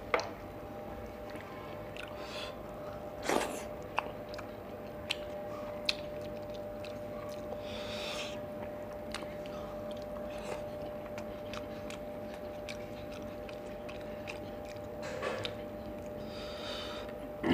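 Fingers mashing and mixing rice with fish curry on a plate: scattered wet squishes and small clicks, with a few short louder bursts. A faint steady hum runs underneath.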